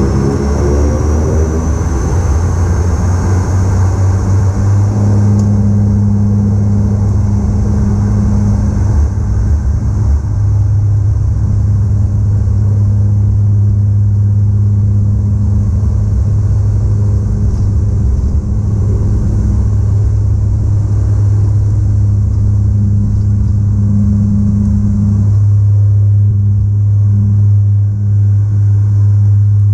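Cabin sound of a Bombardier Q400 turboprop at takeoff power. The engines spool up over the first few seconds with a rising whine. Then the low, steady drone of the six-bladed propellers holds through the takeoff roll.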